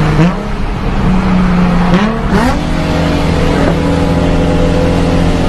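Nissan 350Z's VQ35 V6 pulling under load at speed, heard from inside the cabin, its engine note mostly steady with a short rising change in pitch about two seconds in and another change near four seconds.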